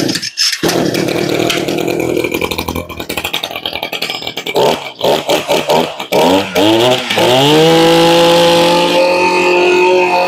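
Kioritz 23cc two-stroke brush cutter engine starting up and running unevenly at first. Its throttle is blipped up and down a few times near the middle, then held at steady high revs for the last few seconds.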